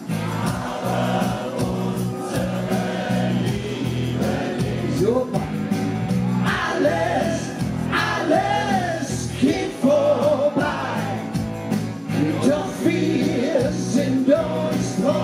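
A man and a woman singing a pop song together into microphones, amplified over a PA with backing music.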